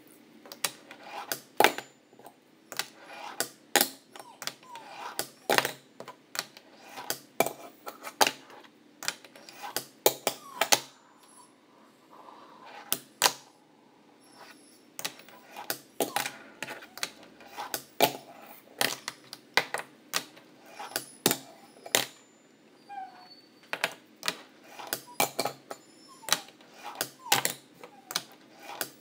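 ReVive wooden fingerboard deck clacking on a wooden tabletop and metal rail: a long run of sharp, irregular pops and landings from kickflips and slides. The clicks thin out for a few seconds about eleven seconds in, then pick up again.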